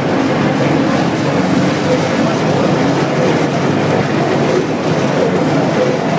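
Construction hoist climbing, its drive machinery running loudly and steadily with a low hum.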